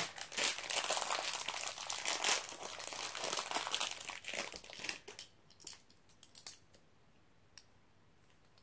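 Plastic packaging crinkling for about five seconds, then a few scattered light clicks.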